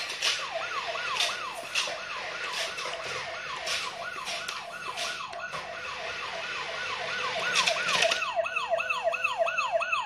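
Toy RC police motorbike's electronic siren wailing in quick repeating rises and falls, about two a second, louder near the end, with a few short clicks.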